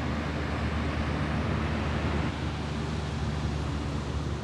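Steady rushing of water pouring through the gates of a river diversion dam, a constant noise with a low hum beneath it.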